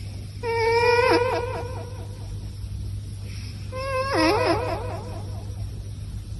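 Two long, meow-like sung notes, each held steady and then breaking into a fast warbling wobble, over a low steady hum.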